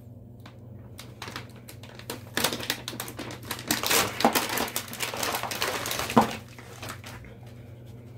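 Plastic food packaging crinkling and rustling as packs of a dog's rice-cake soup kit are opened and handled. The crinkling is dense from about two seconds in until about six seconds in, and ends in one sharp crack. A low steady hum sits underneath.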